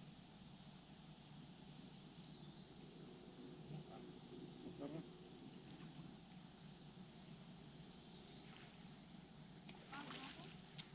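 Faint, steady chirring of insects, with a high continuous trill and a regular chirp about twice a second.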